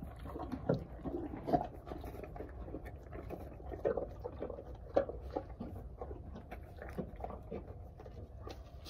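A horse crunching and chewing apple pieces, in irregular crunches roughly a second apart.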